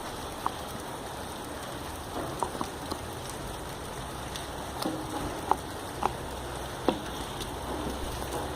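Steady rain, with a few sharp clicks scattered through it.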